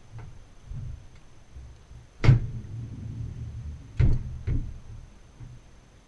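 Dishwasher door being unlatched and opened: a few sharp clicks and knocks, the loudest about two seconds in and two more close together about four seconds in, over a low rumble.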